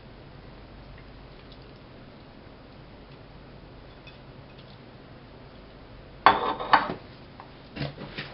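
Quiet room tone, then about six seconds in a short clatter of glass and crockery knocking on a tiled counter, with a few smaller clinks near the end.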